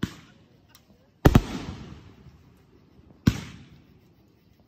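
Aerial firework shells bursting overhead. There is a bang at the start, a faint crack just under a second in, a loud double bang about a second and a quarter in, and another bang about three and a quarter seconds in, each dying away in a trailing echo.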